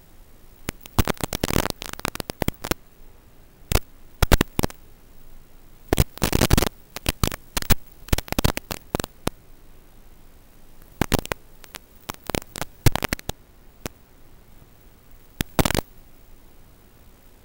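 Harsh crackling static from an analog FPV video receiver's recording, coming in irregular bursts and clusters over a steady low hiss and hum.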